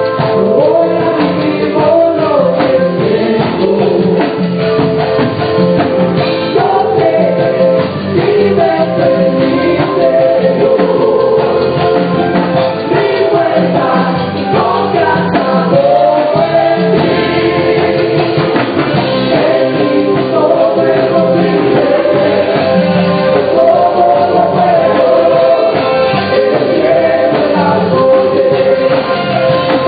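Gospel praise team of several singers singing together through microphones and a PA, with live band accompaniment.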